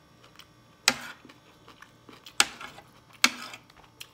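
Metal spoon clinking and scraping against a plate three times, about a second apart, with faint chewing between.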